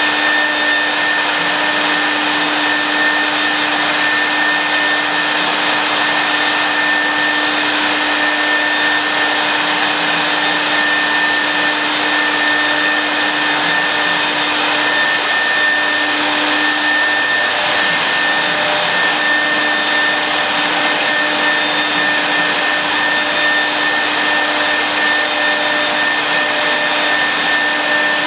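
CNC router machine running: a constant blower-like whir with a steady hum and a higher whine held under it.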